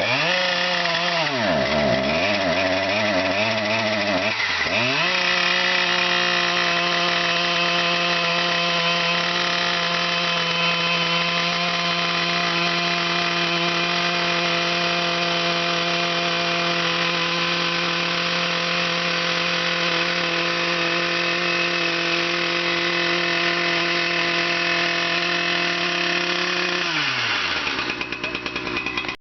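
Chainsaw fitted with an Ezy Rip ripping attachment, cutting lengthwise along a fence post. The engine pitch dips and climbs twice in the first few seconds, then holds steady at full throttle for about twenty seconds before winding down near the end.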